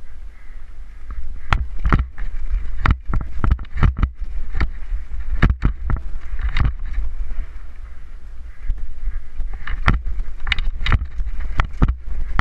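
Downhill mountain bike running fast over a rocky trail: steady wind rumble on the microphone, with frequent sharp rattles and knocks as the tyres and bike hit rocks and bumps. There is a smoother, quieter stretch about two-thirds of the way through.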